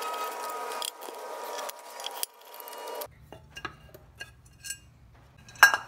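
Small metallic clicks and clinks from the chrome S&S air cleaner cover and its screws as they are unscrewed and the cover is lifted off, with a sharper clink near the end. A steady hissing whine runs under the first three seconds and then stops.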